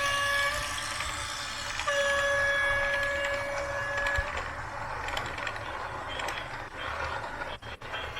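Small electric motor of a radio-controlled backhoe loader whining at a steady pitch: briefly at the start, then again for about two seconds. After that come faint mechanical rattling and a few sharp clicks near the end.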